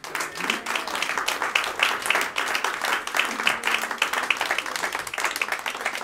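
Audience applauding, a dense patter of many hands clapping at once, straight after a song ends.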